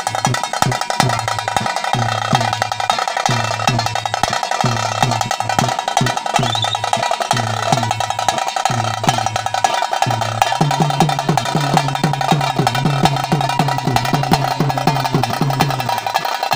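Festival drums beating a steady, evenly repeating rhythm for a lion-costume dance, with a constant metallic ringing over the beat. The drumming grows busier about ten seconds in.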